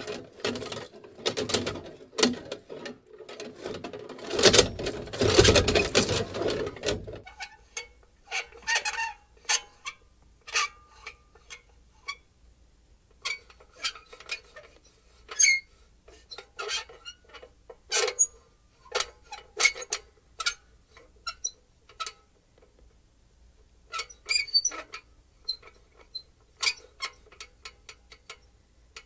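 Small metal lantern being shaken, rattling densely for about the first seven seconds, then moved more slowly so that its metal handle and fittings give scattered squeaks and clicks.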